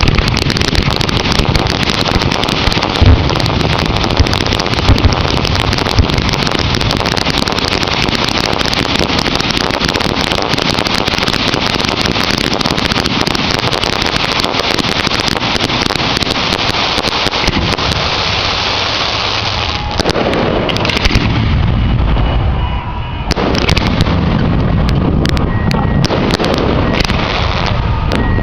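Aerial fireworks show in a dense barrage: a continuous rush of shell bursts and crackling, thinning a little about two-thirds of the way through.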